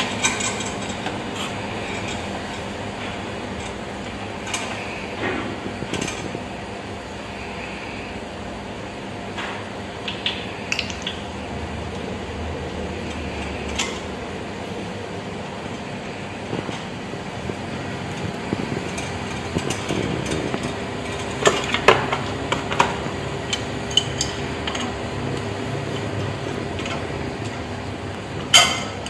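Scattered light metallic clinks and taps from hands fitting a molecular filter-drier into the copper refrigeration lines of an ice maker, with a cluster of them about three-quarters of the way through, over a steady low hum.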